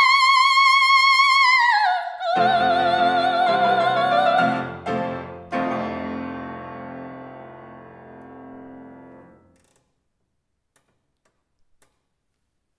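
Operatic soprano holding a long high note with vibrato, rising slightly in pitch, then moving to a lower note as the grand piano enters about two seconds in: the close of the aria. The piano ends it with two chords around five seconds in that ring away to near silence by about ten seconds.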